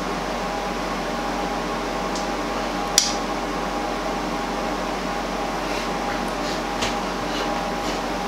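Steady mechanical hum of a room appliance, with one sharp click about three seconds in as a pair of eyeglasses is set down on the table, and a few faint ticks later.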